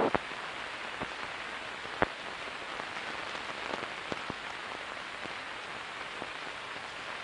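Steady hiss with scattered faint clicks and pops, one sharper about two seconds in: the surface noise of an old film soundtrack with nothing else on it.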